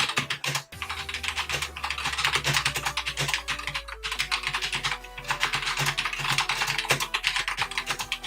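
Steady, fast typing on a Nixeus Moda Pro mechanical keyboard with Gateron Brown switches: a dense run of keystroke clicks, broken by a short pause under a second in.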